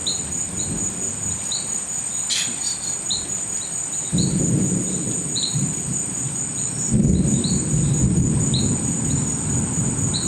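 Crickets and other night insects calling, a steady high trill with short chirps about twice a second. Low thunder rumbles set in about four seconds in and again, louder, about seven seconds in.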